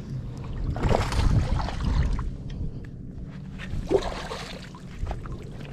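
A hooked bass splashing and thrashing at the water's surface while being fought on the line, in two bursts, about a second in and again about four seconds in. Wind rumbles on the microphone.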